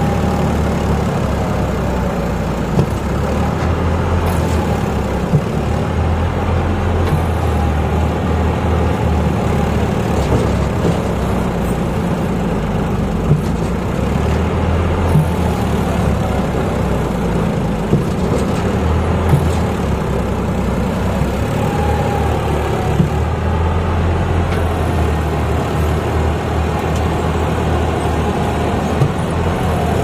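John Deere 5310 tractor's diesel engine running steadily under load, driving a mounted rice combine harvester, with the harvester's machinery going and a few brief sharp knocks scattered throughout.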